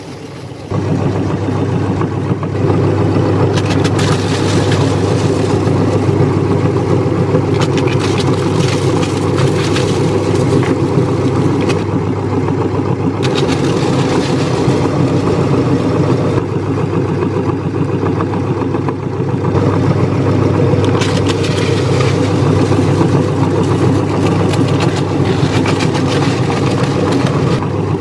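Electric meat grinder motor running with a steady hum while it grinds crunchy cookies, with crackling from the cookies being crushed in stretches. The motor gets louder about a second in.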